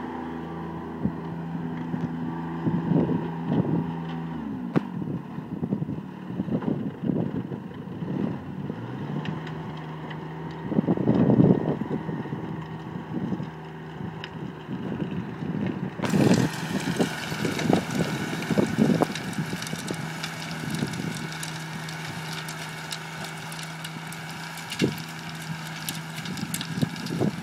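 A John Deere garden tractor's engine runs steadily while powering a rear-mounted Wessex rotary tiller through the soil. The engine note dips about four seconds in and picks up again a few seconds later. Gusts of wind buffet the microphone now and then.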